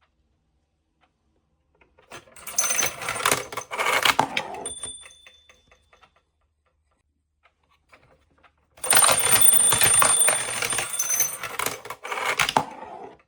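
Wallace & Gromit novelty alarm clock sounding its alarm: two bursts of rattling, clicking clatter with a high ringing tone on top. The first lasts about three seconds and the second starts about nine seconds in and lasts about four.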